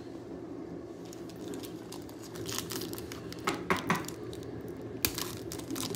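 Baseball card pack wrapper crinkling and tearing as the pack is opened and handled. A run of short crackles starts about two and a half seconds in, with the sharpest one near the five-second mark.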